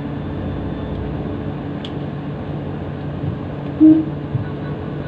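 Ferry engine running in a steady low drone, with water and wind noise, heard on board while under way. A short, loud tone sounds about four seconds in.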